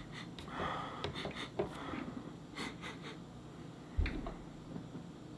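Soft sniffs and breaths at an oiled hand held to the nose, with small rustling and clicking handling noises and a dull thump about four seconds in.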